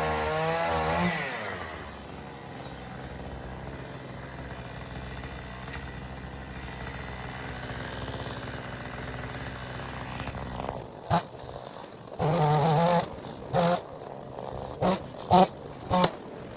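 Two-stroke chainsaw at full throttle that drops back to a steady idle a second or so in. Near the end it is revved in several short blips.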